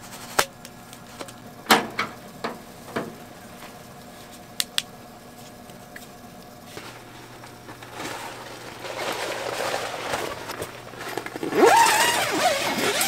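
A few light clicks and knocks of a small plastic lamp being handled, over a steady low hum. From about eight seconds a tent zipper rasps as a wall panel is zipped shut, growing loudest near the end.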